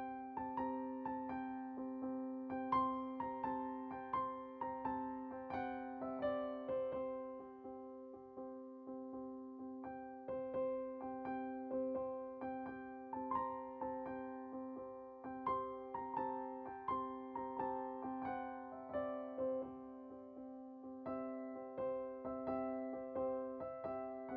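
Background music: a soft electric-piano melody over a held low note, with a steady pulse of struck notes.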